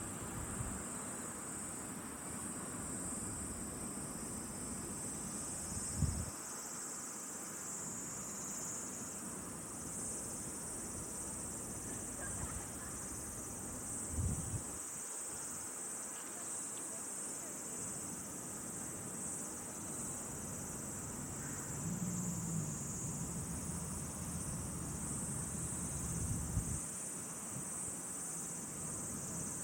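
Steady, high-pitched chorus of insects trilling without a break. A few brief low thumps come about six and fourteen seconds in, and a low rumble rises and fades near the end.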